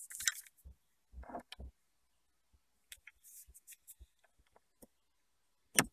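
Faint plastic clicks and handling noise as a USB plug is fitted into a dual-port car charger's sockets, with one sharper click near the end.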